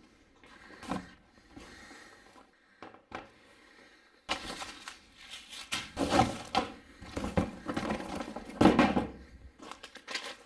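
Rustling, scraping and light knocks of laptop packaging (paper wrapping and cardboard box) being handled, irregular and close up, busiest and loudest from a little past the middle until near the end.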